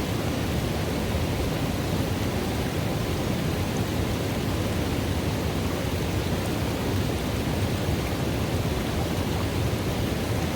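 River water running into a pool: a steady, deep rush of water, unchanging throughout.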